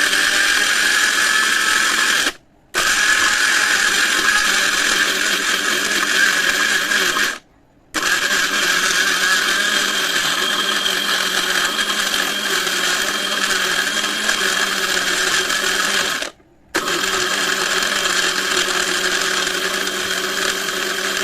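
Electric blender's jar blending chopped apple, ice cubes and sugar, running at a steady high whir. It stops briefly three times and starts again each time.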